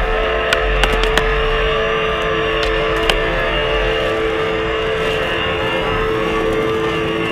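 Music soundtrack with long, droning held notes over a steady dense bed, with a few sharp clicks scattered through it.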